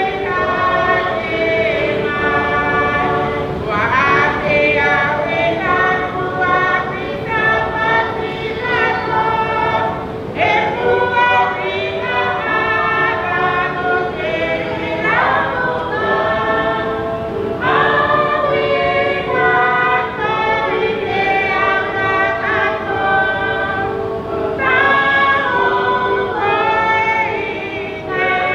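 A choir singing, many voices together with women's voices among them, over a steady held note.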